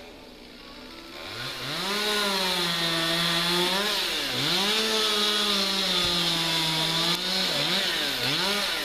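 Chainsaw run by a climber up a tree: it revs up about a second in, then runs at high revs. Its pitch dips and recovers once near the middle and twice near the end.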